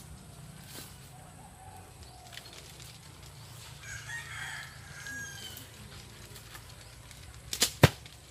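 A rooster crows about four seconds in, over a low steady rumble. Near the end come two sharp knocks in quick succession, the loudest sounds here.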